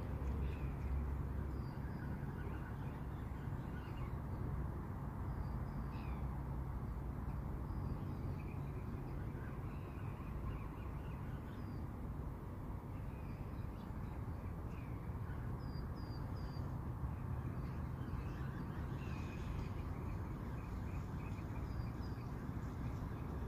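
Small birds calling with short high chirps every second or so over a steady low rumble.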